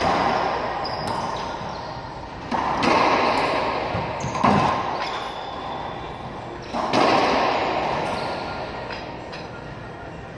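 A few sharp racquetball smacks a couple of seconds apart, the ball striking racquets and walls, each followed by a long echo that fades in the enclosed court.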